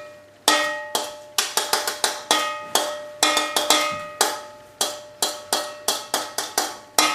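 A spoon knocking and scraping against a metal weighing-scale pan, tipping its contents into a mixing bowl. The strikes are sharp and uneven, about three a second, each leaving the pan ringing briefly like a bell.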